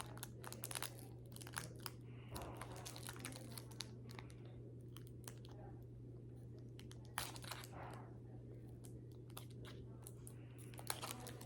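Pokémon booster pack's foil wrapper crinkling and tearing as it is worked open, in many small irregular crackles, over a steady low hum.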